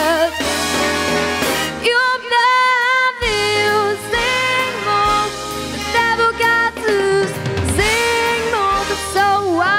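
Young girl singing a pop song into a microphone, holding long wavering notes, over a backing track with drums and bass.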